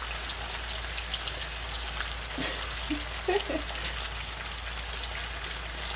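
Meat frying in oil in a cast iron skillet: a steady sizzling hiss with scattered small crackles and spits.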